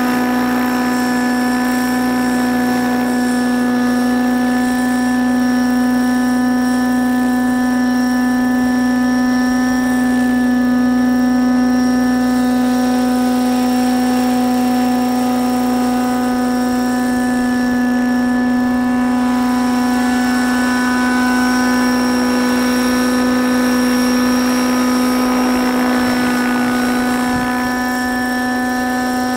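Radio-controlled Raptor 90 SE helicopter, in an Agusta A109 scale body and powered by an O.S. 90-size nitro engine, hovering and flying around. Its engine and rotors give a steady buzzing tone that holds one pitch.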